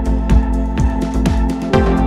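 Background music with a steady beat of about two kick-drum thumps a second over held chords.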